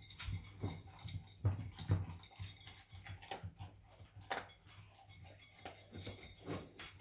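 Labrador puppy eating dry kibble from a metal bowl: irregular crunching with clicks and knocks of kibble and muzzle against the bowl.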